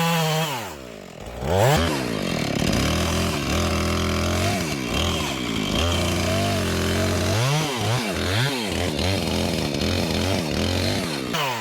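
Two-stroke chainsaw engine running through a felling cut. It drops off about a second in, revs back up, holds steady, revs up and down several times, and falls away near the end.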